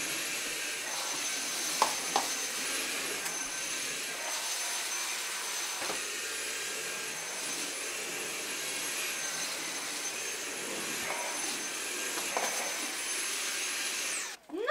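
Cordless stick vacuum cleaner running steadily with a high motor whine while vacuuming the floor, with two sharp clicks about two seconds in. It is switched off near the end and cuts out suddenly.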